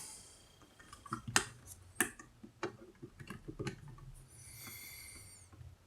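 Several faint, sharp clicks and taps from handling a digital multimeter and its test leads, a few per second for a couple of seconds, while setting up to measure an outlet's AC voltage; near the end, a brief soft hiss.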